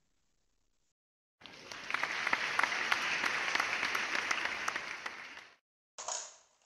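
Crowd applause, starting about a second and a half in and dying away after about four seconds.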